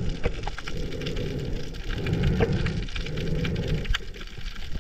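Underwater sound through an action-camera housing as a freediver swims down: a low, muffled water whoosh that swells about once a second, with scattered sharp crackles throughout.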